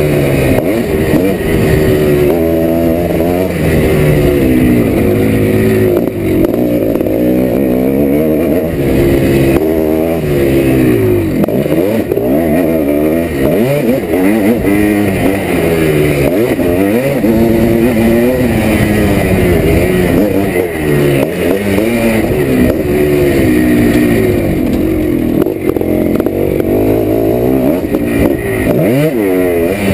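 1987 Yamaha YZ490's single-cylinder two-stroke engine being ridden hard, revving up and dropping back again and again, its pitch climbing and falling every second or two.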